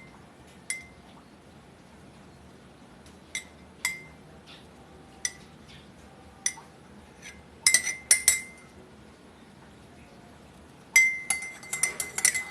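A spoon clinking against a glass while stirring in sweetener for kalamansi juice, each clink ringing briefly. Single clinks come a second or more apart, then a quick cluster about eight seconds in and a rapid run of clinks near the end.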